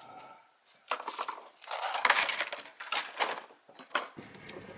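Hand tools and wooden boards being set down and handled on a wooden picnic table: irregular clattering and knocks, loudest about two seconds in.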